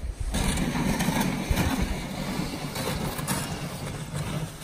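Wind buffeting the microphone: a steady low rumble with a few faint knocks.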